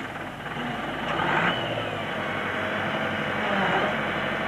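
Backhoe loader's diesel engine working under load as its front bucket pushes into a heap of earth, growing louder about a second in.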